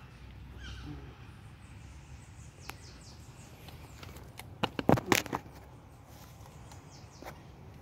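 Handling noise: a quick cluster of sharp knocks and rustles about five seconds in, with a few lighter clicks before it, over faint outdoor background.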